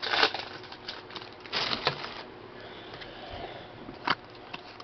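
Trading cards being handled: short rustling and sliding sounds near the start and again around the middle, and a sharp click about four seconds in.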